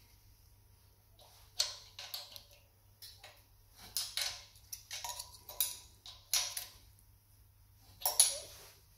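Open-end wrench and screwdriver clinking and scraping on the valve rocker-arm adjusting screw and locknut of a Steyr-Puch air-cooled two-cylinder engine while the valve clearance is set. Irregular metallic clicks and short clinks, the loudest near the end.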